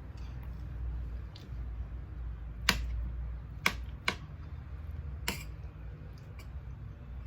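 Cutlery clicking against a plate four times during a meal, the first click the loudest, over a steady low hum.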